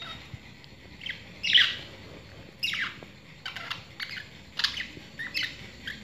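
Small pet parrots chirping and squawking: a run of short, sharp calls falling in pitch, about two a second, the loudest about one and a half seconds in.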